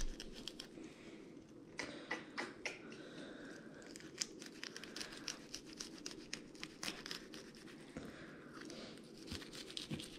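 Fillet knife cutting a trout along its backbone on paper towels: a run of faint scraping and crackling clicks as the blade works against the bones, with paper towel crinkling.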